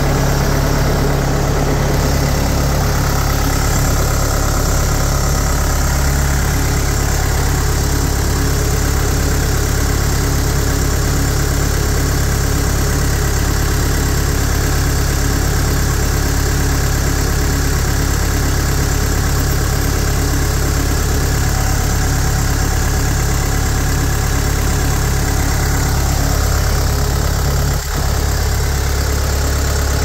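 Case 450 skid steer's four-cylinder diesel engine idling steadily, heard close up at the open engine compartment.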